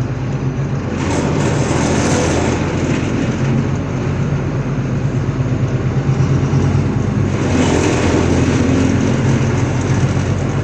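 Interior of a MAZ-215 articulated city bus on the move: a steady diesel engine drone with road noise. A louder rushing swell comes about a second in and another about eight seconds in.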